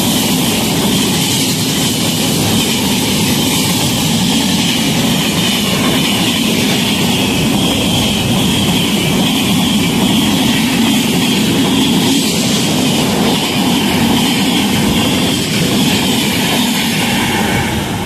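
A long-distance express's LHB passenger coaches passing at speed through a station without stopping. A steady, loud rush of wheels on rail and air.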